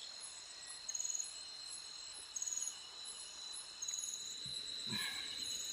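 Night insects calling: a steady high-pitched drone with short trilled chirps repeated about every second and a half.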